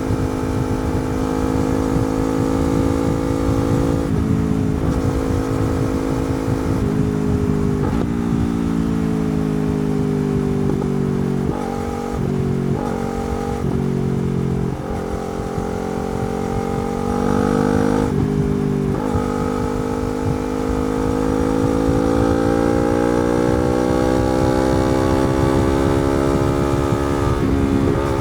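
Yamaha R3's parallel-twin engine with a slip-on exhaust, pulling under way. Its pitch climbs within each gear and drops sharply at each of several shifts. In the middle stretch the revs sink for a while before building again.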